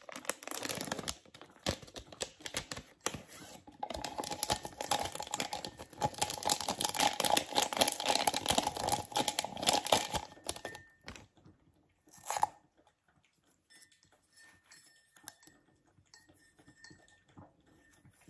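Crinkling and tearing of a green tea bag's wrapper being opened by hand, a dense crackle for about ten seconds. A single short rustle follows about twelve seconds in, then only faint light handling sounds.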